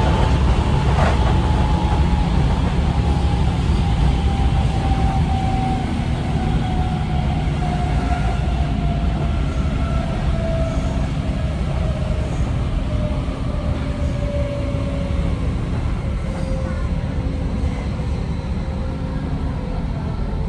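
Onboard a Berlin S-Bahn Class 480 electric train: the traction motors give a clear whine that glides slowly down in pitch as the train slows, over the steady rumble of wheels on rails.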